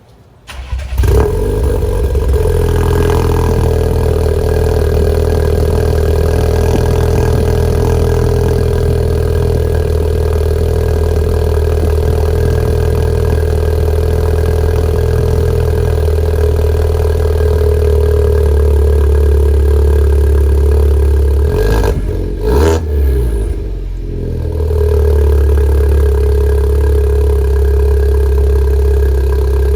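Volkswagen Golf Mk7.5 1.4 TSI turbocharged four-cylinder cold-starting and settling into a steady, loud idle through an aftermarket 2.5-inch downpipe and cat-back exhaust with the resonator deleted. It starts within the first second. The exhaust note wavers briefly about twenty-two seconds in, then settles back to idle.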